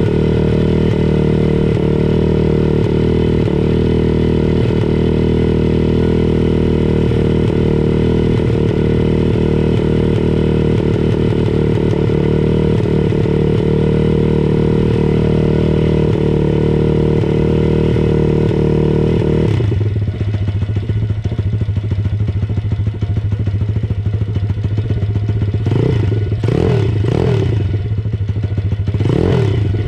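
MRF 140 RC-Z pit bike's four-stroke single-cylinder engine running for the first time, holding a steady fast idle. About two-thirds of the way through it drops suddenly to a lower idle. Near the end come a few short throttle blips.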